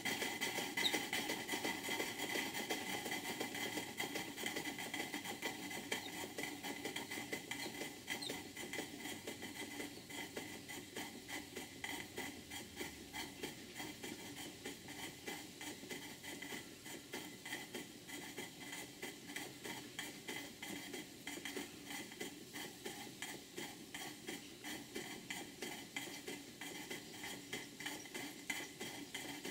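Model steam engines running on live steam: a rapid, even train of exhaust beats and mechanical clatter from the beam engine and hypocycloidal engine, easing in loudness over the first ten seconds or so and then running steadily.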